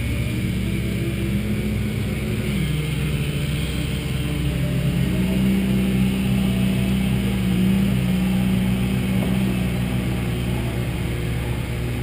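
An engine running steadily, its pitch shifting slightly a few times, with a steady hiss over it.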